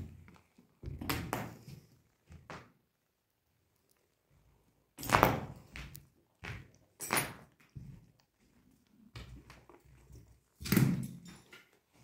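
Irregular thuds and crunches of footsteps on a floor strewn with broken glass and debris, echoing in an empty room. The loudest come about five seconds in and near the end.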